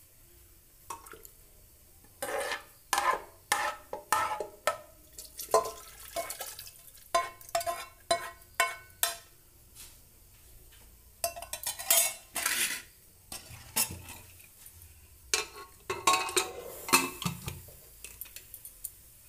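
A metal spoon clinking, knocking and scraping against an aluminium pressure cooker as chicken stew is spooned into it, in many short, irregular strokes. Near the end the cooker's lid is fitted on.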